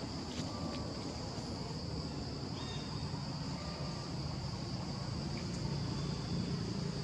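Steady high-pitched drone of an insect chorus, with a few faint chirps and a low rumble underneath.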